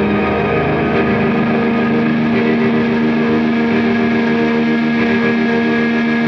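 Instrumental rock music without vocals: electric guitars ringing out through effects in a dense sustained chord, with one low held note that swells in about half a second in and carries on steadily.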